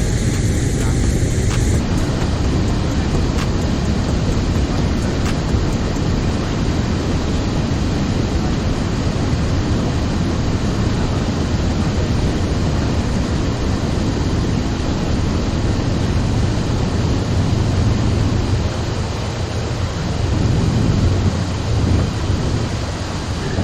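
Steady rush of river water pouring over a low-head weir, an even, loud noise that holds without breaks.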